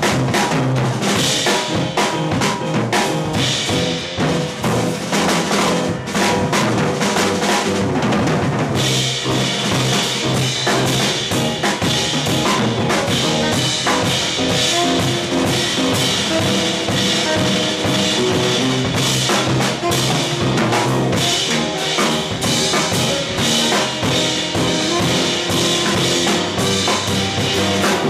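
Live jazz with a Gretsch drum kit to the fore: busy snare, bass drum and rimshot strokes over other instruments. The sound grows brighter and fuller about nine seconds in.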